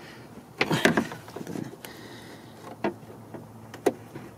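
Pliers and a plastic park light bulb socket clicking and knocking as the socket is twisted counterclockwise out of the light housing: a cluster of knocks about half a second in, then single clicks near three and four seconds.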